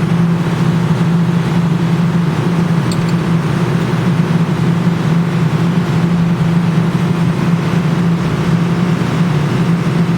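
Claw machine humming steadily while it is played, a loud, unbroken low drone with a faint click about three seconds in.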